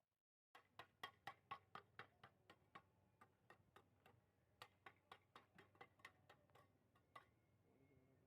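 A faint, quick, uneven series of light knocks or clicks, about four a second, starting about half a second in.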